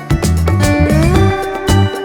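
Latin-style background music with bass, percussion and a guitar line that slides up in pitch about a second in.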